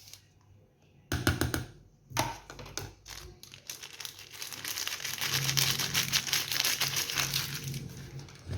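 Flour and baking powder being sifted through a small mesh strainer over a bowl: a couple of knocks of the strainer, then a rapid, continuous scratchy rasping as it is shaken and tapped.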